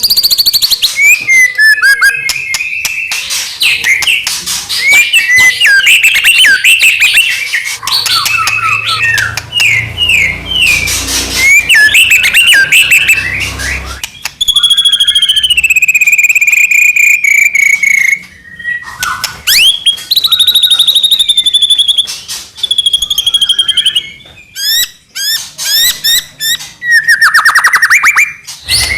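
White-rumped shama (murai batu) in full, continuous song: a fast, varied string of whistles, chirps and trills. About halfway through comes a long whistle falling in pitch, and near the end fast repeated sweeping notes.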